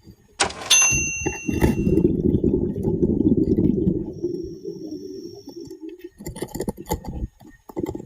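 Underwater audio of a diver's exhaled air bubbling out in a long low rumble, opened by a sharp metallic clink that rings briefly, with a run of crackling clicks near the end.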